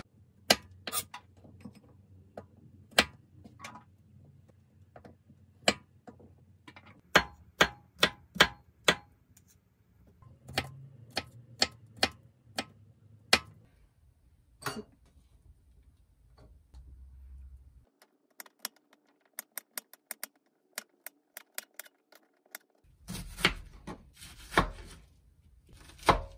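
Kitchen knife on a wooden cutting board chopping garlic and onion: scattered sharp knocks of the blade striking the board, with a run of quick light taps as the garlic is minced and a cluster of louder chops near the end as the onion is cut.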